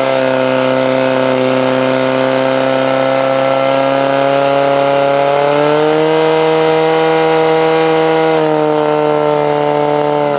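Portable fire pump's engine running flat out while pumping water to two hose nozzles. Its steady pitch steps up a little about halfway through and eases back slightly near the end.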